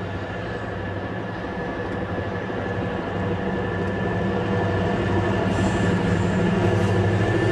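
Nohab My-class diesel locomotive's two-stroke EMD 567 engine running with a steady low drone, growing louder as the locomotive approaches.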